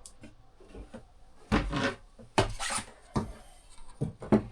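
Wooden step lid being handled: several short scrapes and knocks of wood on wood.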